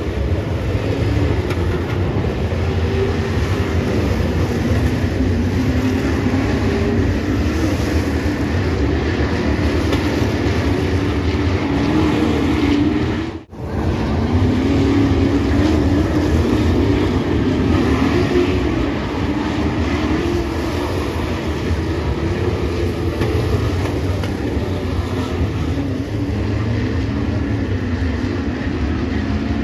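Several dirt-track Super Truck race engines running as the trucks lap the oval, their pitch rising and falling as they throttle through the turns. The sound cuts out for an instant about halfway through.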